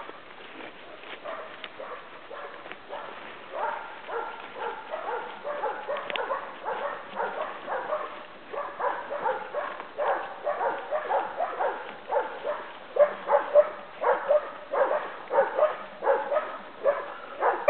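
Hunting dogs barking over and over, baying a hog: about two barks a second, getting louder toward the end.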